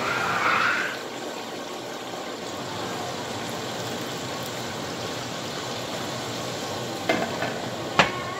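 Water poured into a hot pan of fried, flour-dredged chicken, sizzling loudest in the first second as it hits, then settling into a steady sizzle as the gravy liquid starts to heat. Near the end come two sharp knocks, the second ringing briefly, as a glass pan lid is set on.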